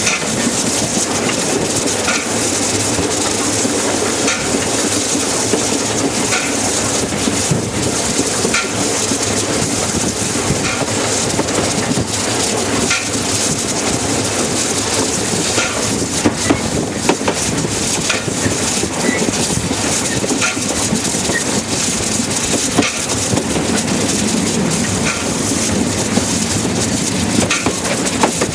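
Narrow-gauge steam train hauled by locomotive 101 running along the line: a loud, steady rolling rush and hiss, with a faint click about every two seconds.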